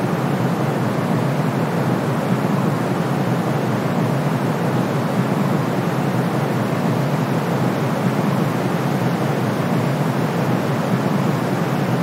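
Steady brown noise mixed with white noise: an even, deep rushing sound with a fainter hiss on top.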